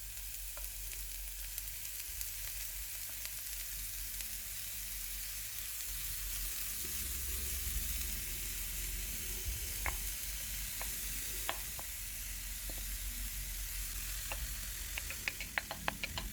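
Onion-and-spice tempering sizzling in hot oil in a frying pan as chopped banana flower goes in and is stirred through, with a spoon now and then clicking and scraping against the pan, in a quick run of clicks near the end.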